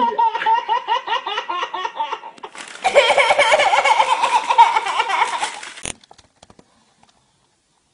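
A baby giggling in quick bursts. After a cut about two and a half seconds in, a man laughs in the same giggling way. The laughter cuts off abruptly about six seconds in.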